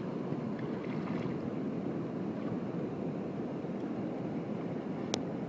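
Steady rushing of wind on the microphone mixed with water lapping around a kayak on the lagoon, with one sharp click near the end.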